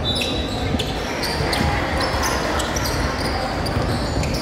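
Basketball game in a gym: a ball bouncing on the hardwood and many short high sneaker squeaks over a steady din that echoes in the hall.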